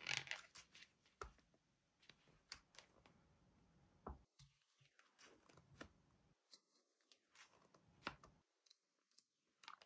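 Faint handling of a plastic toy and its packaging: a short rustle at the start, then scattered sharp clicks every second or so.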